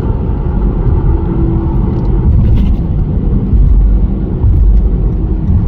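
Loud, steady low rumble of road and wind noise from a car driving at speed.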